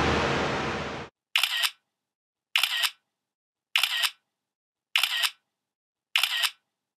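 Music cuts off about a second in. Then a camera shutter clicks five times, about once every 1.2 seconds, with dead silence between the clicks.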